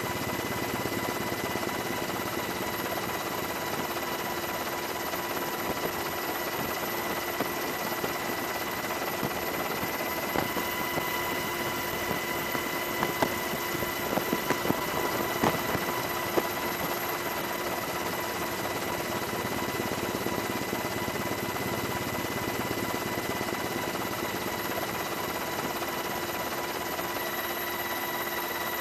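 Helicopter running, heard from aboard: a steady drone with a constant whine. A few light knocks come around the middle.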